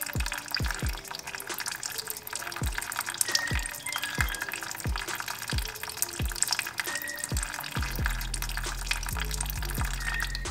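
Background electronic music: deep kick drum hits that drop in pitch, over steady synth notes, with a sustained bass line coming in about eight seconds in.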